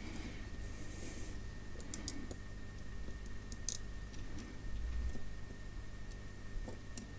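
A few sharp, sparse clicks of tiny screws and a small screwdriver being handled against a security camera's circuit board module and housing, over a steady low hum.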